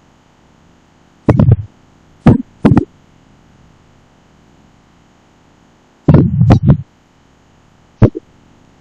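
Steady recording hiss and faint electrical hum, broken by several short, loud knocks or bumps: a cluster about a second and a half in, two more between two and three seconds, a rattle of several around six seconds, and a single one near the end.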